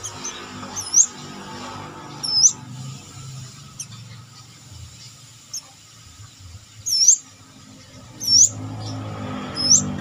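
Brown-throated sunbird (kolibri kelapa) giving sharp call notes, five in all, each dipping and then sweeping up in pitch, spaced a second or more apart. A low steady hum runs underneath.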